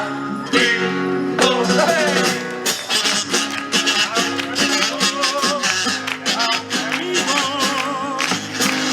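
Live carnival chirigota music: guitars playing with regular drum hits, and held, wavering notes over them about halfway through and again near the end.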